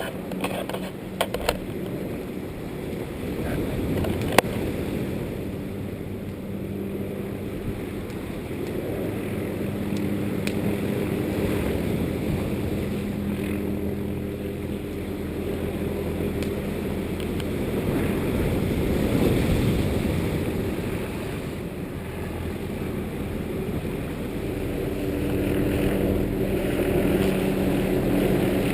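A steady engine drone, its humming tones swelling and fading, mixed with wind noise; a few sharp clicks near the start and one about four seconds in.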